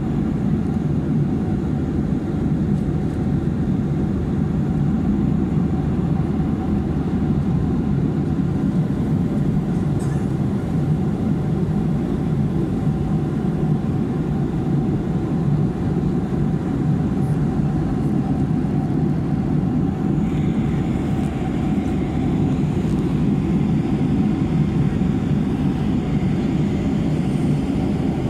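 Steady cabin noise of a jet airliner in cruise flight: an even, low rush of airflow and engines, with a faint steady hum above it.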